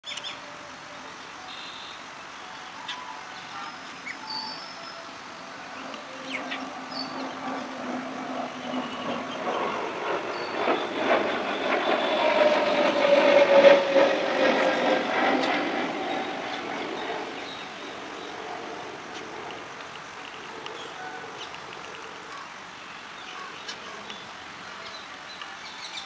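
A vehicle passing: a rumbling noise that swells over several seconds, is loudest about halfway through, then fades, with a slowly falling tone at its peak. A few faint high chirps in the first seconds.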